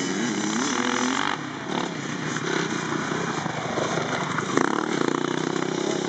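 Dirt bike engine revving as it is ridden over a motocross track, its pitch rising and falling with the throttle, then holding steadier in the second half.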